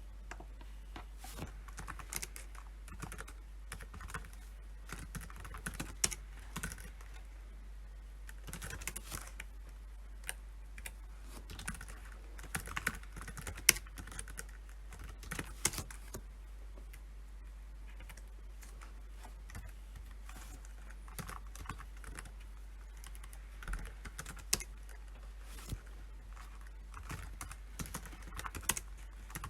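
Typing on a computer keyboard: irregular runs of key clicks with short pauses between them and a few louder keystrokes, over a faint steady low hum.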